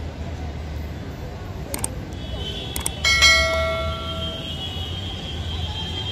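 Two quick clicks, then a single bright bell ding that rings out and fades over about a second and a half. It is the mouse-click and notification-bell sound effect of a subscribe-button overlay, heard over a steady low outdoor rumble.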